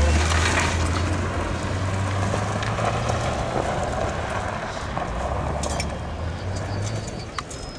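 A car engine running with a low hum and tyre and gravel noise, growing fainter as the car moves away over rough ground. A few light clicks come near the end.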